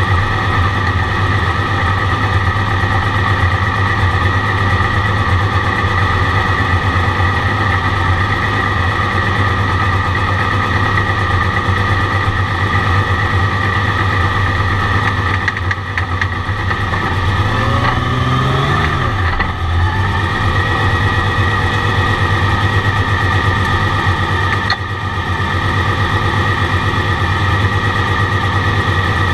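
Turbocharged flat-six of a 1982 Porsche 935 heard from inside the cockpit, running at low revs as the car rolls slowly, with a steady high whine over the engine note. A little past halfway it revs briefly, rising and then falling in pitch; a click comes about five seconds before the end, and the engine starts to rev again right at the end.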